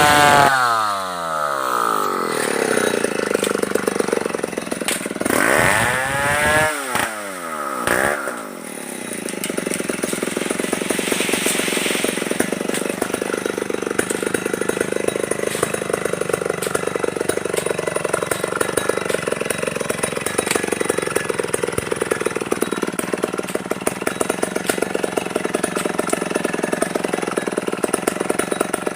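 Stihl 070 two-stroke chainsaw dropping off full throttle at the start, revved briefly twice a few seconds later, then idling steadily.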